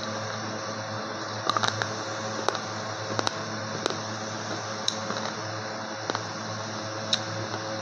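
Slate pencil being bitten and chewed: sharp, crisp crunches about once a second, over a steady low hum.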